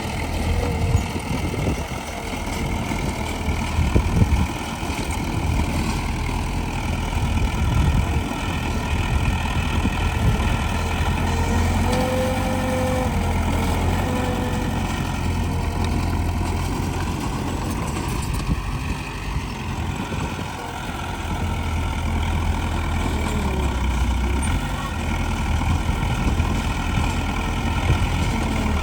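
Heavy diesel engines of a bulldozer and dump trucks running steadily with a deep rumble, with a few knocks in the first four seconds.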